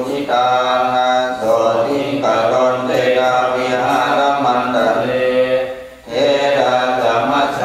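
Buddhist monks chanting Pali in a steady, droning recitation, with a brief break for breath about six seconds in.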